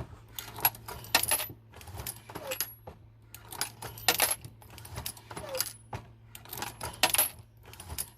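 Hornady Lock-N-Load AP progressive reloading press being cycled, about six strokes. Each stroke brings a cluster of clinks as 9mm brass cases drop from the 3D-printed case feeder and the shell plate indexes, roughly one cluster every second and a half.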